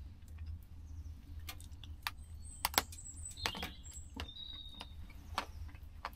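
A ration-pack chocolate bar's wrapper being torn open and handled: quiet, scattered crinkles and clicks, with a few sharper snaps around the middle.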